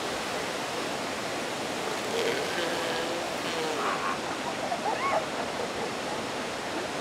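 Ocean surf washing steadily on the beach, with a few short, high animal calls about two, four and five seconds in, the last one rising.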